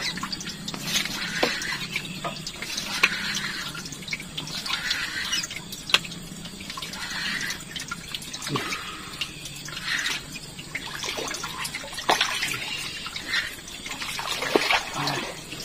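Water splashing and trickling in irregular spurts, with a few sharp clicks.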